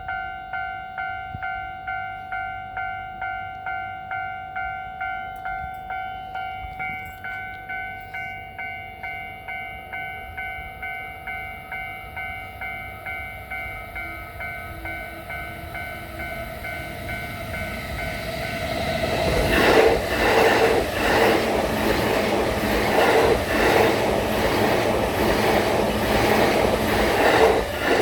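Japanese level-crossing warning bell ringing in a steady, evenly repeated electronic ding. About two-thirds of the way in, a train passes over the crossing, its wheels clattering rhythmically over the rail joints, loudest near the end and largely covering the bell.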